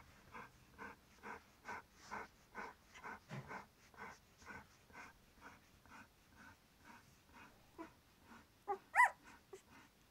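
Flat-coated retriever bitch panting steadily, about two breaths a second. Near the end there is one short high whimper, the loudest sound here.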